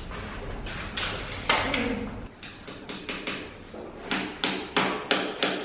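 Repeated hammer blows on a renovation job, scattered at first and then settling into a steady rhythm of about three blows a second near the end. Each blow rings briefly. A low steady hum underneath stops about two seconds in.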